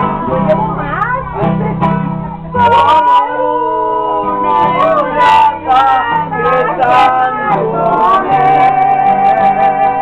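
Acoustic guitar strummed with bass notes stepping from chord to chord, while a man sings long, wavering held notes of a Spanish-language song.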